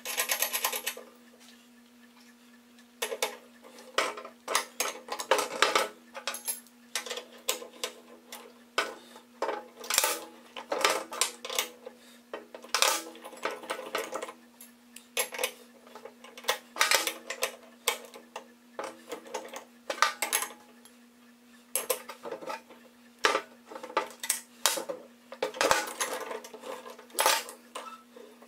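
Irregular metallic clinks, taps and scrapes as steel mower-deck brackets, bolt and nut are handled and fitted together by hand, coming in clusters with short pauses. A steady low hum runs underneath.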